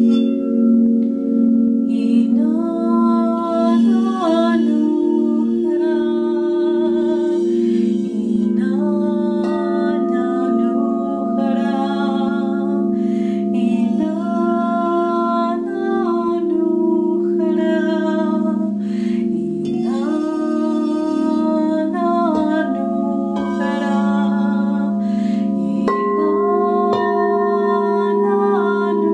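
Crystal singing bowls sounded with a wand, ringing with steady, overlapping tones that pulse slowly, while a woman's voice sings long, gliding tones over them. A further bowl comes in with a higher tone a few seconds before the end.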